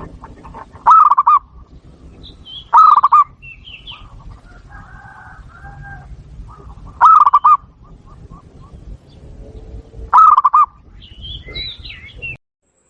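Zebra dove (perkutut) of the Bangkok type singing: four loud, short, quickly pulsed coos spaced a few seconds apart. Fainter chirps of other small birds come between the coos. The recording cuts off abruptly near the end.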